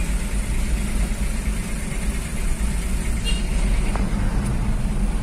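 Steady low engine rumble on a ferry's enclosed vehicle deck, heard from inside a car.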